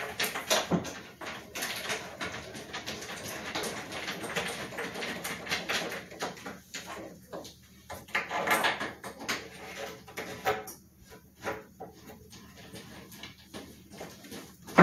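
Knocks, clicks and scraping of wooden furniture panels being handled during bed assembly, with a louder stretch of scraping about eight seconds in and a sharp knock at the very end.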